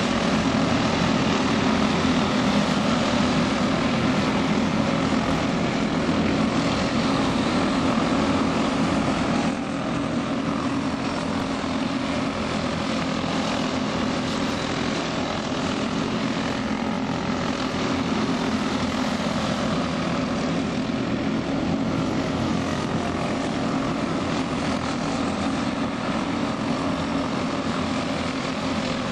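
Small engines of several caged champ karts running at racing speed: a steady, dense drone that drops a little in level about ten seconds in.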